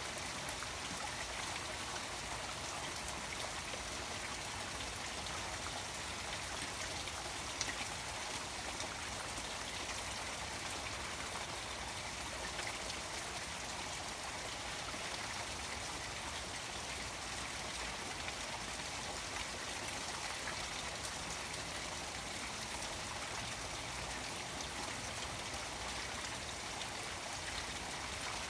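Water garden waterfall spilling steadily into a koi pond, with rain pattering on the water and scattered single drops ticking.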